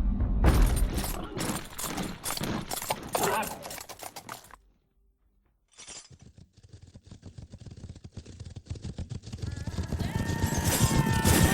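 Re-made battle sound effects: a dense run of sharp crashing, shattering impacts, then a second of silence. After that comes a fast patter of many small clicks and clatters, with pitched, slowly falling calls or tones building in near the end.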